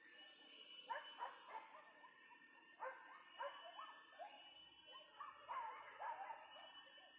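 Hunting dogs barking faintly in three short volleys of quick, sharp barks, about a second, three seconds and five and a half seconds in. A steady high insect tone sounds for a couple of seconds in the middle.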